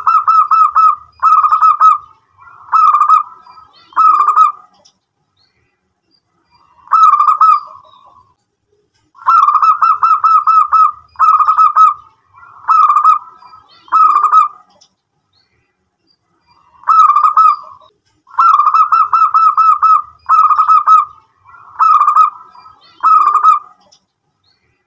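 Zebra dove singing: three bouts of rapid, pulsed cooing phrases. Each bout opens with a longer trill followed by three or four shorter phrases, with pauses of two to three seconds between bouts.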